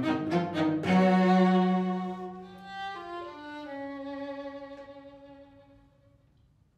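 String quartet playing: a quick run of short, stabbed repeated notes, then a loud held chord about a second in that slowly fades. Around three seconds in a few notes step downward, and a last held note dies away to near silence.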